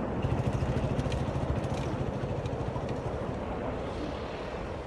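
An off-road motorcycle engine running with a rapid low pulsing, mixed with wind noise on the microphone.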